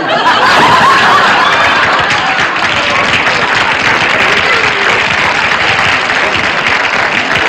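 Studio audience applauding steadily after a punchline, with a few voices or laughs in the first couple of seconds.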